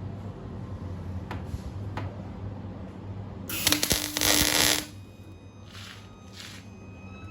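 Welding arc struck for about a second near the middle, a loud crackling hiss over a steady low electrical hum, followed by two short, fainter arc bursts: tack welds at the start of a welding test.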